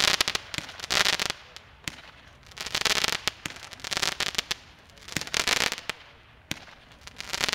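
Amey "Spacewalk" fireworks battery firing shot after shot. Each aerial burst breaks into a dense crackling of many sharp pops, about every second or so, with single sharp cracks in between.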